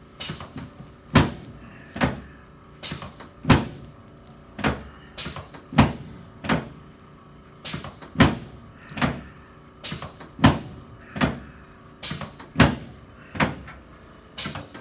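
Chiropractic adjustment of the sacrum and sacroiliac joints: a steady run of about twenty sharp knocks, a little over one a second.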